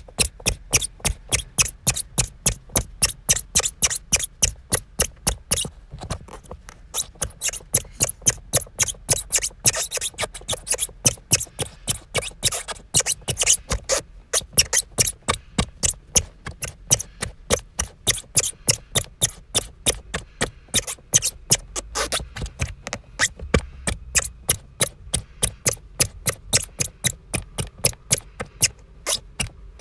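A squeak repeated rapidly and steadily, several short high-pitched squeaks a second, with brief pauses about six and fourteen seconds in. The thing that squeaks cannot be told.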